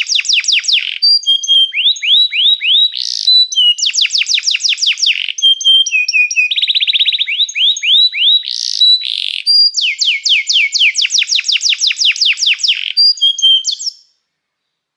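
Domestic canary singing: fast trills of repeated downward-sliding notes, broken by short whistled notes, phrase after phrase. The song cuts off suddenly about a second before the end.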